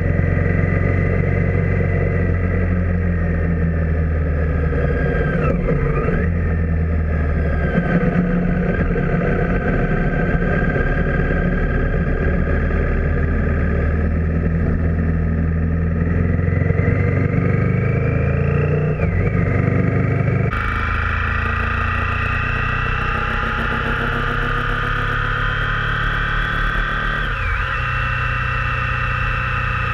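Motorcycle engine running while riding, its note rising and falling with the throttle, with road and wind noise, recorded by a Garmin VIRB Ultra 30's microphone. About 20 seconds in, the recording switches abruptly to a GoPro Hero 4's microphone and turns brighter and hissier.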